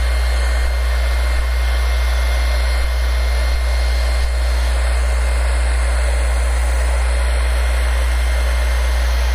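Hand-held hair dryer blowing steadily, heating vinyl wrap so it softens and conforms into a corner, over a steady low hum.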